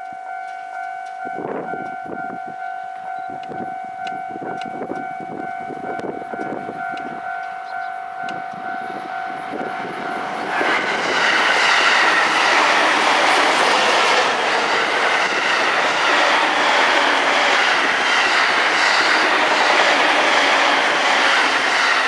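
E231-series electric commuter train passing close by from about ten seconds in: a loud, sustained rush of wheels on rail with clickety-clack over the joints. Before it, a steady high ringing tone and faint rhythmic clacks.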